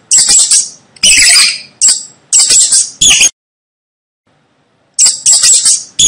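Mouse squeaking: a run of short, high-pitched squeaks, a sudden break of near two seconds of dead silence, then the squeaks start again.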